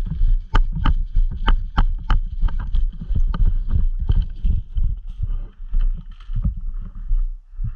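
A quick, uneven run of sharp clicks and knocks, several a second and thinning out after about four seconds, over a heavy low rumble of wind and handling on the microphone.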